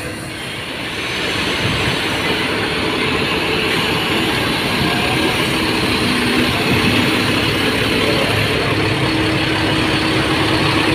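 Mercedes-Benz OH 1626 bus's rear diesel engine idling steadily, a continuous rumble with a hiss over it, growing louder over the first two seconds.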